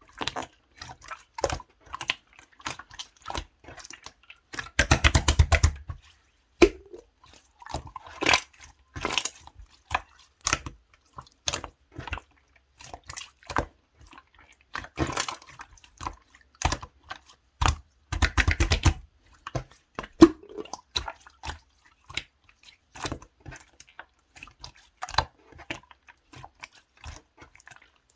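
Clear orange slime being played with by hand, making irregular wet clicks and pops. There are two runs of rapid crackling clicks, about five seconds in and again around eighteen seconds.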